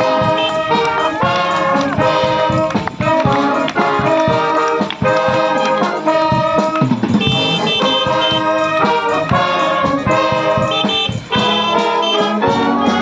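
A brass band playing a tune, with trumpets and other brass carrying a melody of note after note.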